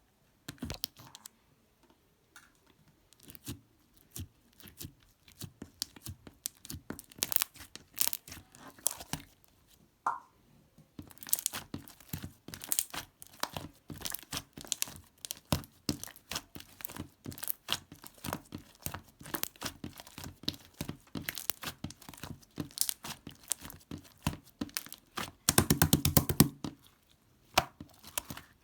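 Close-up crinkling and tearing of something being handled, like paper or plastic wrapping, with many irregular sharp crackles. A louder, denser spell of crackling comes near the end.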